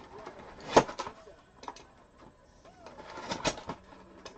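Trading cards and pack wrappers being handled on a table: a few short swishing slides and rustles, the loudest a little under a second in and a cluster about three and a half seconds in.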